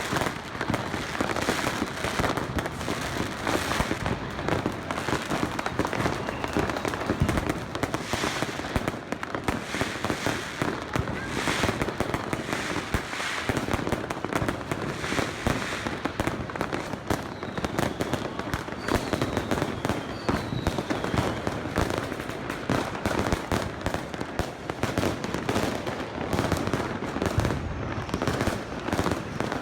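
Dense, continuous New Year's fireworks: firecrackers and rockets banging and crackling in rapid irregular succession all around, with a couple of faint falling whistles a little past the middle.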